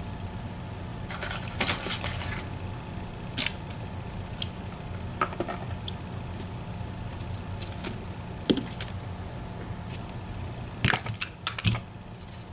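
Small metal parts of a disassembled EVVA ICS lock cylinder, its sliders and pins, clicking and clinking as they are worked out of the core and set down. Scattered sharp clicks, with a quick cluster of louder ones near the end, over a steady low hum.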